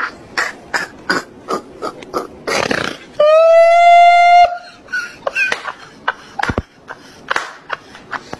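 Short sharp smacking sounds a few times a second, then a loud, long burp at a steady pitch lasting just over a second, about three seconds in.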